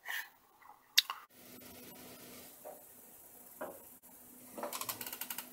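Faint handling noise of small objects on a desk: a sharp click about a second in, a couple of soft knocks, then a quick run of small clicks near the end.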